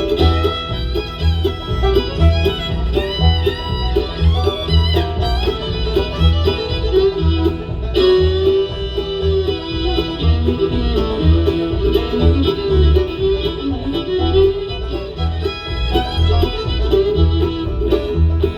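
Bluegrass band playing an instrumental break, with banjo and fiddle over guitar and a steady bass beat.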